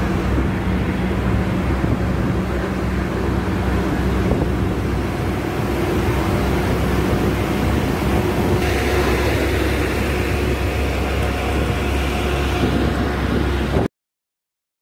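Inside a moving bus at highway speed: steady engine drone with road and wind noise, a brighter rushing hiss joining after about nine seconds. The sound cuts off suddenly near the end.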